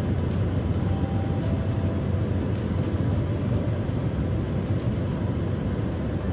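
Small propeller plane's engine and propeller droning steadily, heard on board in flight.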